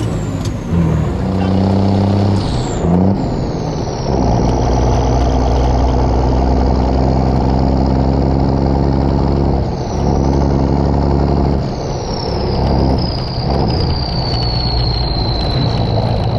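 M35 Reo deuce-and-a-half army truck under way, its engine running loud and steady, with the engine note dropping and changing briefly about ten and twelve seconds in. A thin high whine slides down and back up over the engine.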